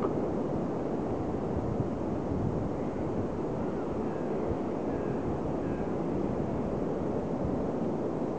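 Steady beach wind and surf noise: an even rushing hiss that never lets up.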